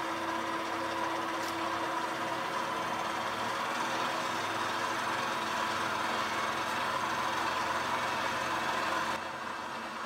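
Cincinnati vertical milling machine running with its spindle switched on in low gear, driven by a three-phase 5 HP motor: a steady mechanical hum with a high whine over it. About nine seconds in the noise drops a little and gets duller.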